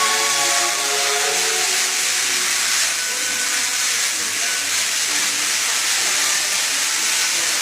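Water fountain jets spraying and splashing as a steady hiss.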